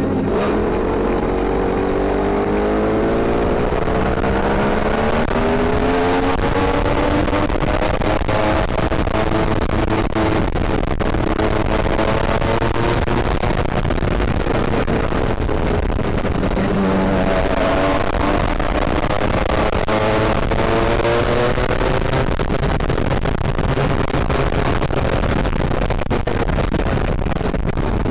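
Small gas engine of a motorized bicycle running while riding, its pitch climbing and dropping several times as it speeds up and eases off, over steady wind and road noise. It is geared with a 40-tooth rear sprocket and revs really high.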